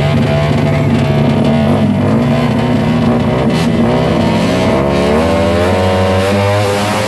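Drag-racing motorcycle engines revving at the start line, their pitch rising and falling over and over.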